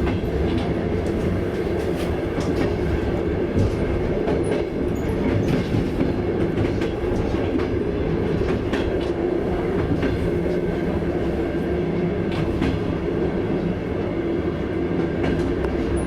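Trans-Siberian passenger train running along the track: a steady rumble with scattered clicks and knocks from the wheels.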